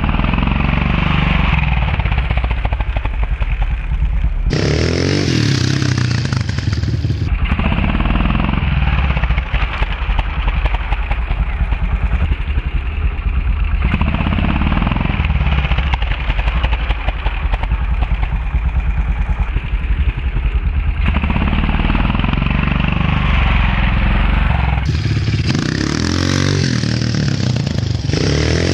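Honda CRF dirt bike's single-cylinder four-stroke engine revving hard and dropping back again and again, with rising surges in pitch. The rider is blipping the throttle to pop the front wheel up into a wheelie.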